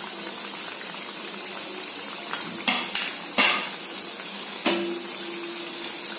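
Hot oil sizzling steadily as pieces of dal batti deep-fry golden brown in a steel kadhai. A metal slotted spoon clinks against the pan a few times, about two to three seconds in and again near five seconds, and the last clink rings briefly.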